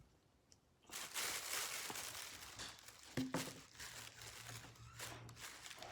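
Crinkling and rustling, starting about a second in and going on unevenly, with one short low sound a little after three seconds.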